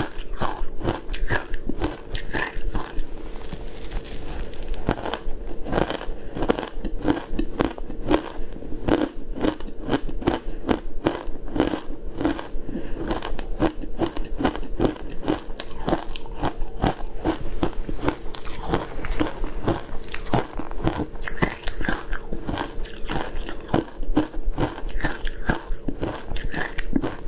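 Shaved ice dusted with matcha powder crunched and chewed close to a clip-on microphone: a continuous run of crisp crackles, many a second.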